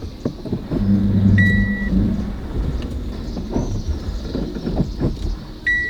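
A Wuling Hongguang S van being parked, its engine running low and its electronic warning beeping. One high beep comes about a second and a half in and another near the end, among a few knocks.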